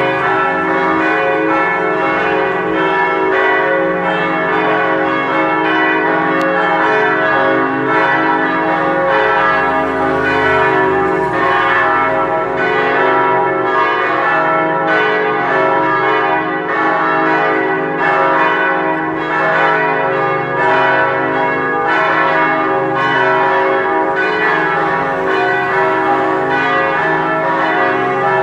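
Four church bells tuned C♯, E, F♯ and G♯ swinging in full peal, their strokes overlapping in a continuous, unsteady ringing.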